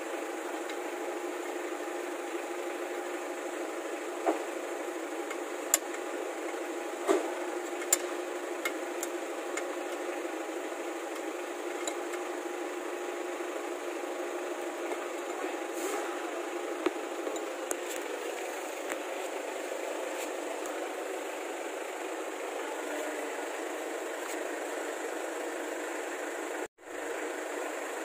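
Steady mechanical hum like an engine running in the background, with a few light metallic clicks and taps in the first several seconds as the drum brake behind the wheel is worked by hand. The sound cuts out briefly near the end.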